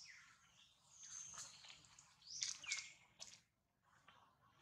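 Faint bird calls: several short, high whistles that slide downward in pitch, the loudest about halfway through, with a few light clicks like leaves rustling.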